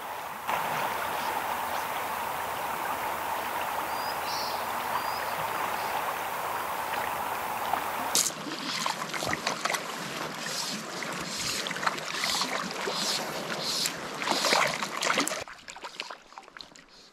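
River rapids rushing steadily. After a sudden change about eight seconds in, irregular splashes and knocks sound close by for several seconds, then they die down.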